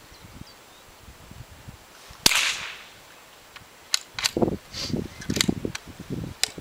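A single shot from a parlour rifle about two seconds in: a sharp crack with a short ringing tail. Several sharp clicks and dull handling knocks follow.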